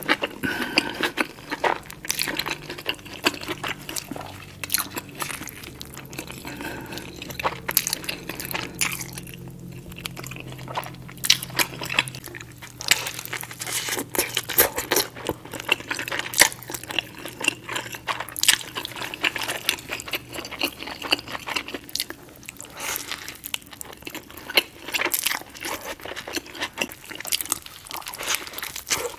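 Close-miked eating of a mushroom cheeseburger: biting and chewing, with many short, sharp, irregular mouth clicks and light crunches.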